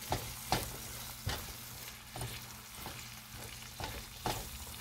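Julienned carrots and garlic sizzling in melted butter in a frying pan while being stirred with a spatula, which scrapes and taps against the pan at irregular moments.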